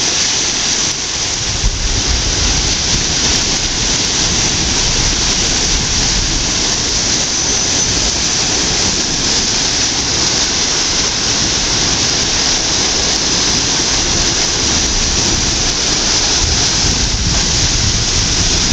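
Large whirlpool sucking river water down into a lock's submerged filling intake, a loud steady rushing with irregular low rumbling. The vortex forms because the intake pipes are drawing water in to fill the lock chamber.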